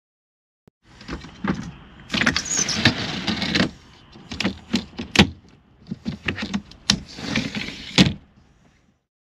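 A motorhome window's cassette fly-screen blind being slid open by hand. It makes stretches of sliding noise broken by clicks and knocks, with a sharp click about five seconds in and another about eight seconds in as the rail reaches its stop.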